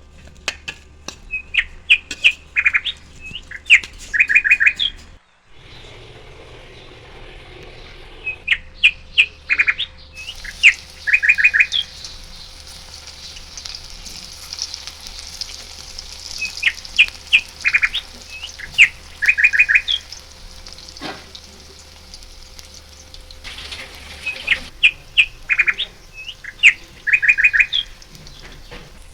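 A songbird's phrase, a few sharp chirps then a fast trill, repeated four times about eight seconds apart. Under it is a steady hiss that swells into a sizzle for the middle half, like batter frying in hot oil.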